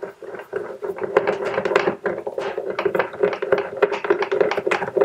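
Hand ratchet with a long 10 mm socket clicking in quick, uneven runs as it undoes the bolt of a car battery's hold-down clamp.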